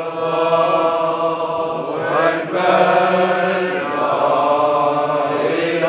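Men's voices chanting together in unison in long held notes, a Sufi devotional chant of the Sadi order. The melody moves to new notes about two seconds in and again about four seconds in.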